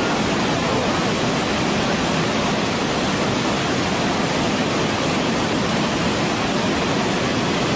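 Waterfall rushing, a steady unbroken noise of falling water.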